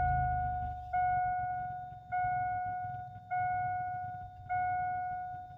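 Car's seatbelt warning chime ringing five times at about one-second intervals, each tone fading away, because the driver's belt is unbuckled. The freshly started engine idles underneath as a low rumble.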